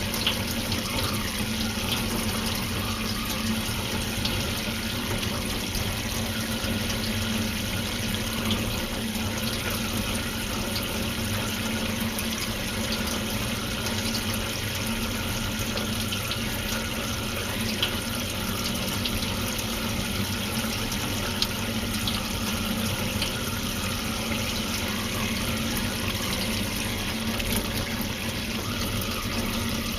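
Steady running water, an unbroken rush with a few faint ticks.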